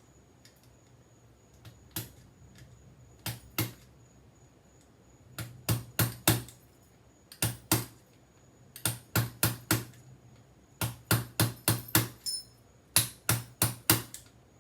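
Repeated sharp metal-on-metal taps: a screwdriver driven against a euro lock cylinder resting on concrete, hammering to knock its cam assembly off. The taps come in short quick runs of a few at a time, getting louder and closer together toward the end.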